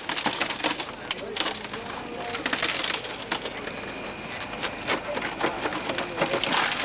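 Shattered car window glass crunching and tinkling as it is pushed and raked out of the window frame by gloved hands, a dense run of small irregular clicks and crackles.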